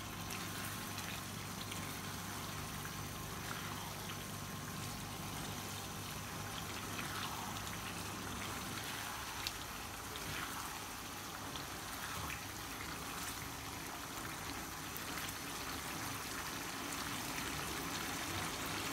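Chicken pieces in tomato masala simmering in a nonstick frying pan: a steady soft bubbling and sizzling, with a few light scrapes and taps of a silicone spatula as the pan is stirred.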